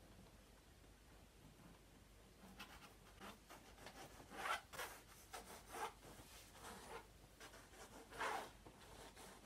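Faint scratching strokes of a drawing tool sketching across a stretched canvas. A run of short strokes starts about two and a half seconds in, a few of them louder.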